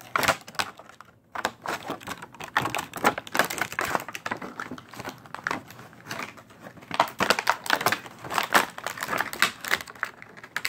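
Stiff clear plastic blister packaging crinkling and clicking as it is handled, a dense, irregular run of sharp crackles after a brief pause about a second in.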